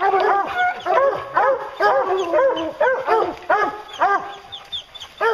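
A pack of hunting hounds barking hard at the foot of a tree, several dogs at once with overlapping barks, several a second. Barking at the trunk like this is the tree bark of hounds that have a bear treed.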